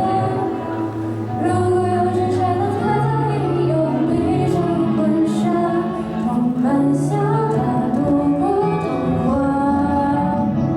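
A song with a woman singing over instrumental accompaniment.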